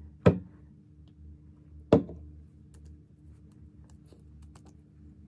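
Two sharp, loud thuds close to the microphone, about one and a half seconds apart, followed by a few faint light clicks.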